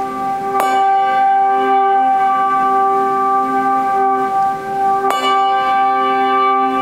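Two handbells rung together twice, about half a second in and again about five seconds in. Each stroke rings on in a long chord of clear tones.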